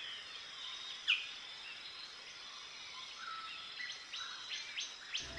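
Forest ambience: a steady high-pitched insect drone with scattered bird calls. There is a louder downward-slurred note about a second in and a run of short falling notes near the end.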